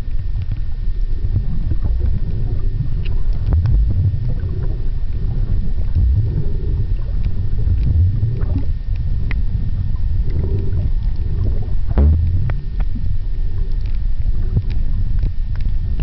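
Muffled underwater noise recorded by a camera held underwater: a steady low rumble of moving water, with scattered faint clicks.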